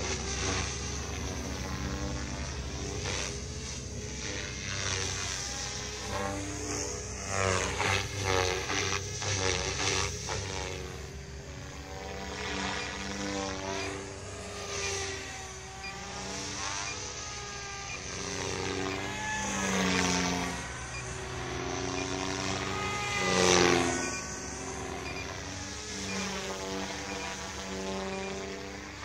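Radio-controlled model airplane in flight, its motor and propeller whining steadily, the pitch rising and falling again and again as it flies past and the throttle changes. The loudest swell comes near the end, when it passes closest.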